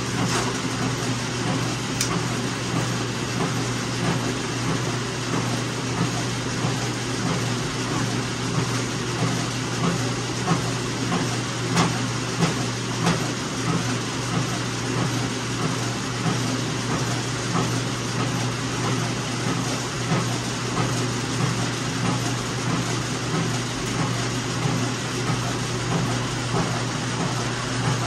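Automotive paint mixing bank running, its motor drive giving a steady low hum, with a few light clicks over it.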